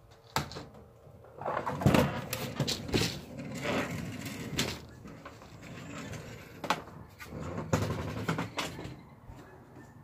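Scattered knocks, clicks and rustling from someone moving about with a bowl and a phone in hand, with a few sharp clicks near the start and middle.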